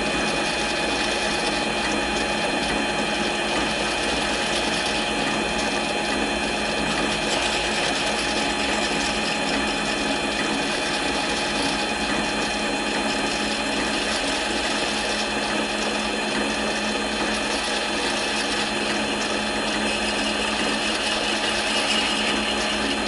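Mini lathe running steadily under load, a constant whirring with a steady gear whine, as a parting blade in a spring tool holder cuts into a 1-1/4 inch 1018 steel rod.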